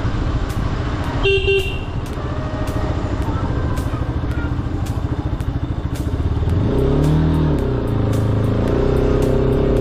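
Bajaj Pulsar RS 200's single-cylinder engine running low and steady, with a short horn beep about a second in. Around seven seconds the engine revs briefly, its pitch rising and falling, then it settles at a slightly higher, steady pitch.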